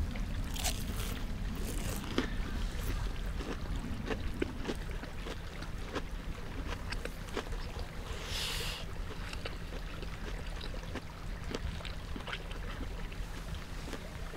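Close-up chewing of crisp vegetable tempura, a run of small crunching clicks, with a short breath out about eight seconds in. A steady low rumble sits underneath.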